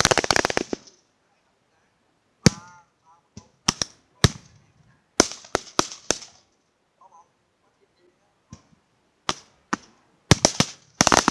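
Gunshots in an irregular volley: a rapid string of cracks at the start, scattered single and paired shots through the middle, and another rapid string near the end.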